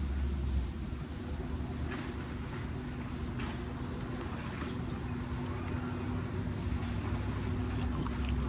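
600-grit wet sandpaper rubbed by a gloved hand over a car's painted body panel in quick back-and-forth strokes, about three a second, giving a steady rhythmic hiss.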